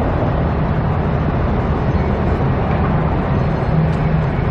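Steady low engine rumble with outdoor street noise, holding an even level throughout.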